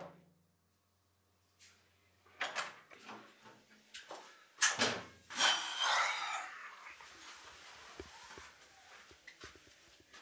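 Interior door being handled and opened by its lever handle: a few sudden knocks about two and a half and five seconds in, then a longer scraping hiss that fades, and a few faint clicks.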